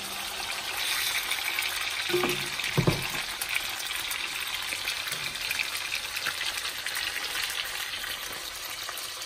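Swai fillets frying in oil in a cast-iron skillet: a steady sizzle, with one brief low sound about three seconds in.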